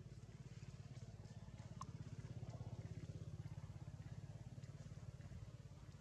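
Faint small engine running with a rapid even beat, getting louder about two seconds in and fading again, as a passing vehicle does.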